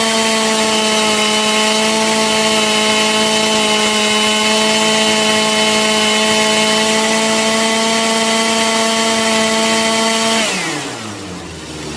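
Stihl MS181 C chainsaw's small two-stroke engine held at full throttle with no load, revving cleanly and steadily at about 13,000 RPM on a freshly tuned carburettor. About ten and a half seconds in, the throttle is released and it drops back to idle.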